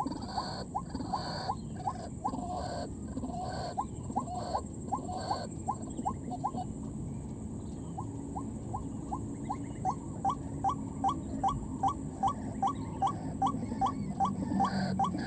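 White-breasted waterhen calling: a long series of short rising notes, about two a second, pausing for a couple of seconds midway and then starting again. A steady high-pitched whine runs underneath.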